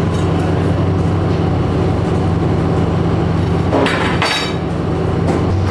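A fishing trawler's engine drones steadily while steel wire rope is handled on deck, with light metallic clinks and a louder ringing metal clatter about four seconds in.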